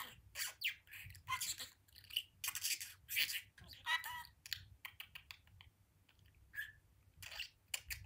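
Pet budgerigar chattering: an irregular run of short, scratchy warbles, chirps and clicks, easing off briefly about five seconds in.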